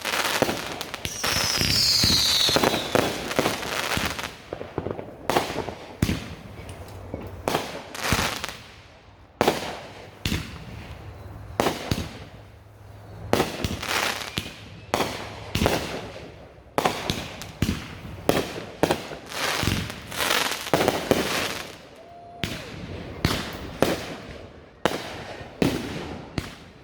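Fireworks going off in quick, irregular succession: many sharp bangs, each trailing off in an echoing rumble. A falling whistle sounds about two seconds in.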